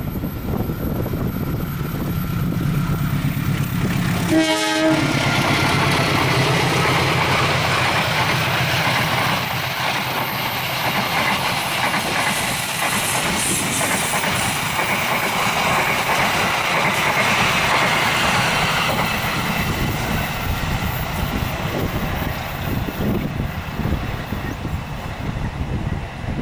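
Indonesian diesel-hauled passenger train passing close by. The locomotive gives one short horn blast about four seconds in, then its engine runs past and the carriages follow, with steady wheel-on-rail noise and clatter.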